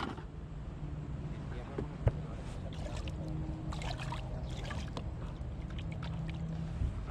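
Steady low rumble on a small fishing boat on the water, with one sharp knock about two seconds in.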